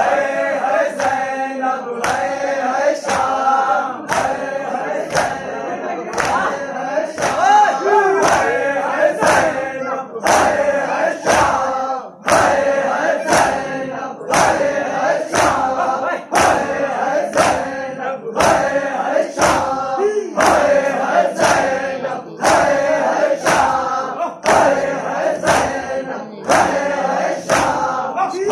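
A group of men chanting a noha, a Shia mourning lament, in unison while beating their chests together in matam. Each hand strike on the chest is a sharp slap, coming in time at about one per second.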